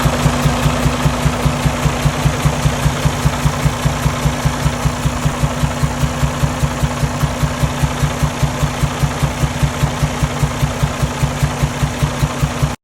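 Detroit DD15 diesel idling with a regular popping from the intake and air filter, about four pops a second. The engine has no compression on cylinders 4, 5 and 6, and the mechanic suspects the valve adjustment.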